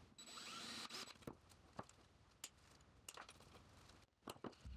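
Faint, sped-up hand-tool work on a small piece of sheet metal: scattered light clicks and taps, with a short scraping sound about a quarter of a second in.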